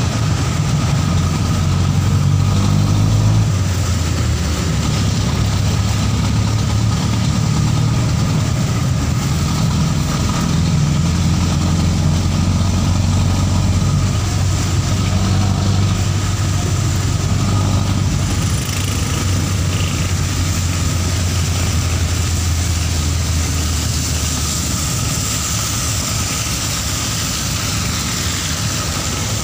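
A vehicle engine running steadily, heard from inside the vehicle with its side open to the street, over a hiss of tyres on the wet road. The low engine drone eases off near the end.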